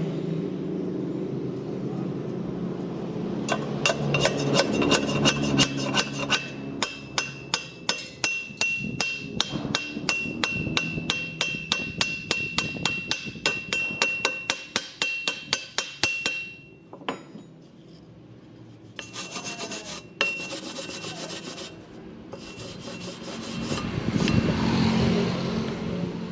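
A hand tool scraping or striking bare steel in quick rhythmic strokes, about three or four a second, with a steady metallic ring under them; after a pause, a few shorter bursts of scraping near the end.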